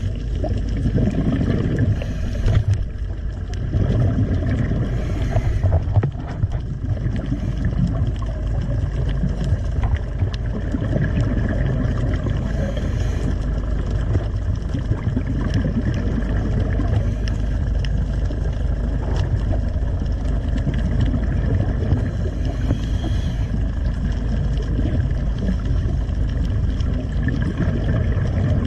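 Underwater sound on a scuba dive: a steady low rumble of water against the camera housing, with short bursts of exhaled regulator bubbles every few seconds.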